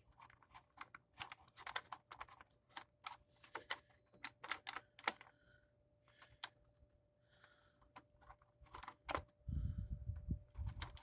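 Quick, irregular small clicks and rattles of a plastic air filter cover being worked off a lawn mower engine, with a few low, dull thuds near the end.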